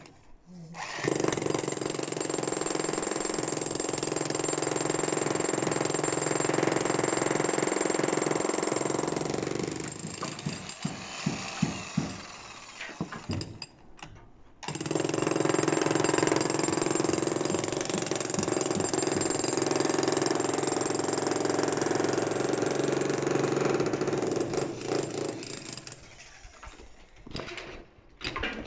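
Dongcheng electric demolition hammer chiselling into a hard reinforced-concrete floor slab. It runs in two long bursts of about ten seconds each, and each burst tails off into scattered knocks before a short pause.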